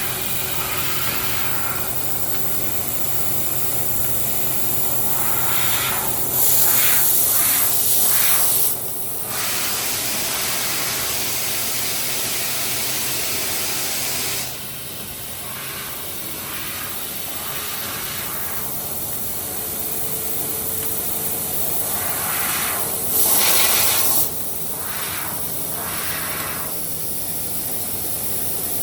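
Laser cutting head of a CNC punch-laser combination machine: a steady hiss of assist gas, with two louder blasts of about two seconds each, one about six seconds in and one near the twenty-three-second mark, each followed by a few short puffs.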